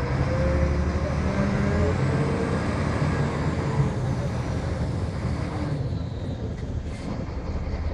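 Volvo B7R coach's diesel engine running while the bus drives, heard from inside the passenger cabin, a steady low hum mixed with road noise.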